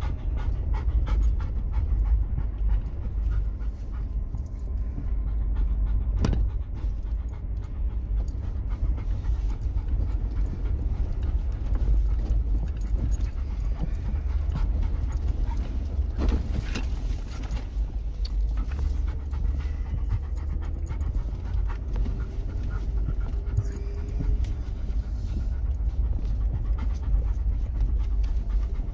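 Steady low rumble of an off-road vehicle on the move, with panting breaths over it.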